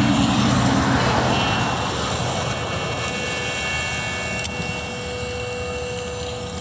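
A road vehicle passing by, its engine and tyre noise swelling briefly about a second in and then fading away, leaving steady faint background noise.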